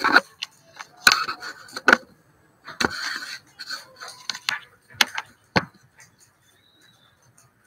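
Handling noise from fingers on the recording phone: a series of sharp knocks with rubbing and scraping in between, dying away to quiet about six seconds in.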